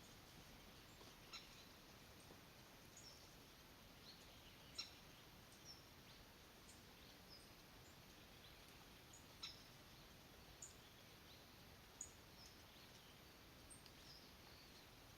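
Faint, short, high bird chirps scattered every second or so over a steady background hiss.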